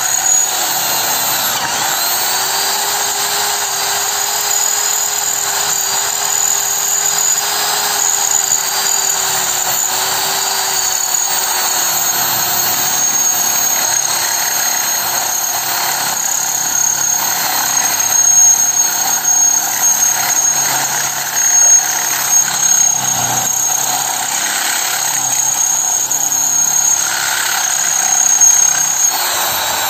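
Electric drill running steadily as its bit bores into a steel pipe, the bit kept wet with poured water, with a steady high squeal of metal being cut over the motor whine. The cutting grows rougher and more uneven in the second half.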